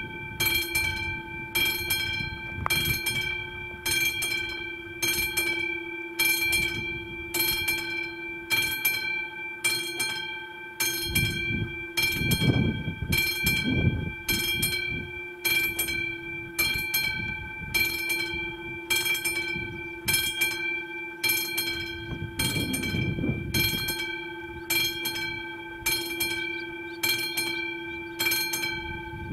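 Level-crossing warning bell of an AŽD 71 crossing signal, a classic mechanical bell striking steadily at about two strokes a second, each stroke ringing on: the crossing is closed for an approaching train. A low rumble swells twice, around the middle and again later.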